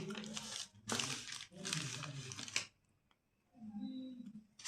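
Plastic candy wrappers being crinkled and torn open, with a person's voice over them. There is a short pause about three seconds in, then a brief vocal sound.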